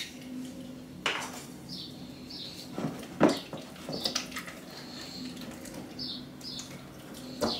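Wooden spoon knocking and scraping against a glass mixing bowl while an egg is mashed into melted mozzarella, with a few sharp knocks, the loudest about three seconds in.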